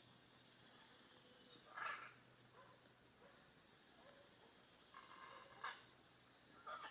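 Faint outdoor nature ambience: a few short, scattered bird calls over a steady high-pitched hum.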